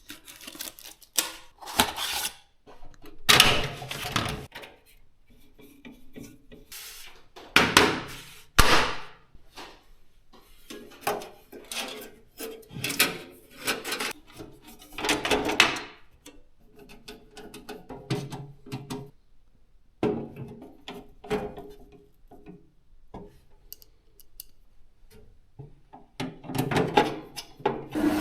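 Hands working on PC parts during assembly: irregular bursts of rubbing, scraping and clicking, a second or two apart, with quieter gaps between them.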